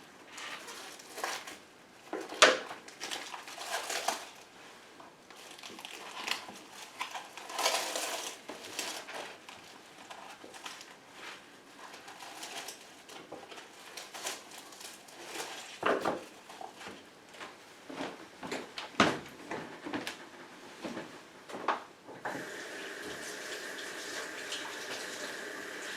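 Kitchen handling sounds: pans, dishes and utensils knocking and clattering, with bursts of running water. About 22 seconds in, a steady rushing noise starts and keeps going.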